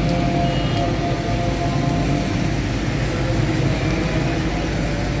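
Steady street traffic: car and motorcycle engines running.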